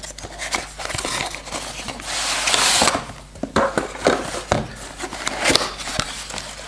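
Cardboard phone packaging being handled: the inner box slides out of its paper sleeve with a scraping hiss about two seconds in, among scattered clicks and knocks as the cardboard is gripped and its flaps are opened.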